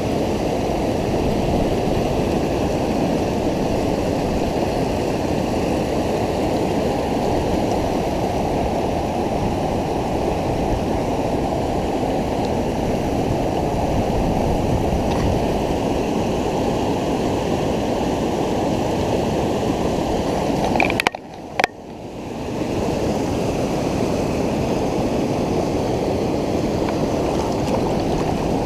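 River water rushing over a weir and through the rapids below it, a steady heavy rush. About three-quarters of the way through it drops away suddenly for about a second, then swells back.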